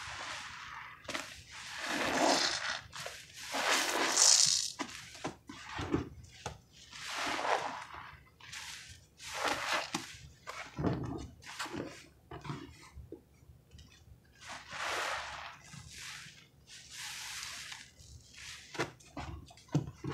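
Wet squelching of soapy sponges and a cloth being squeezed and wrung in thick pine-cleaner suds, in irregular surges every second or two.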